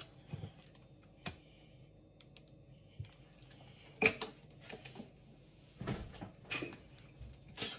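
Faint, scattered clicks and light knocks of objects being handled, a few at a time, with the sharpest knock about halfway through.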